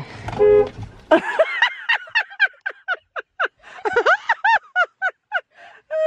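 A Dodge car's horn gives one short honk about half a second in, followed by several seconds of high-pitched laughter in quick repeated bursts.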